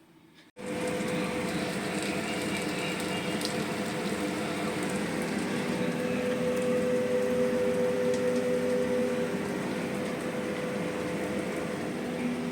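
Potato pakoras deep-frying in hot oil: a steady sizzle that starts suddenly about half a second in, with a steady hum underneath.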